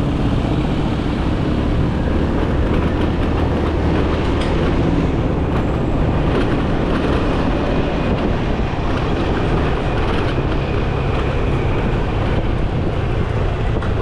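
Motorcycle taxi's engine running steadily on the move under an even rush of road and wind noise, heard from on board.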